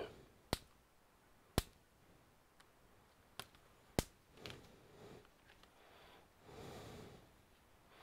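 Small sharp clicks, about four in the first half, from a tool working at a ribbon-cable connector on a laptop motherboard, then soft rustling of gloved hands near the end.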